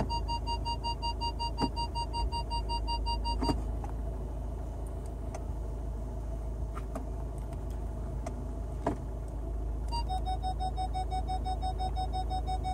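Car idling with a steady low hum while the automatic gear selector is moved slowly through its positions, with a few sharp clicks as it is shifted. A rapid electronic warning beep from the car pulses until about three and a half seconds in, stops, and comes back at a lower pitch about ten seconds in.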